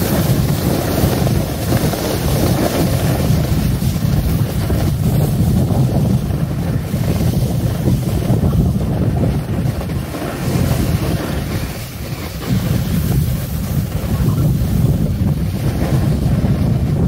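Loud wind buffeting a phone microphone while riding fast down a groomed ski run: a steady rumble, with the hiss of sliding over packed snow. It eases briefly about twelve seconds in.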